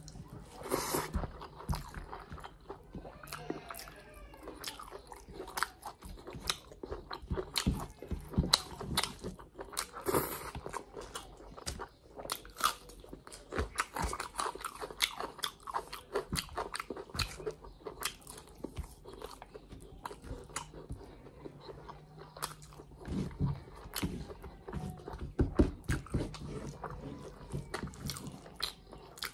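Close-miked chewing of a person eating rice and chicken liver and gizzard curry by hand: wet mouth clicks and smacks, irregular and almost unbroken.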